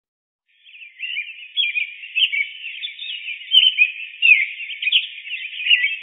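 A chorus of small birds chirping and twittering together, a dense run of quick high chirps that starts about half a second in.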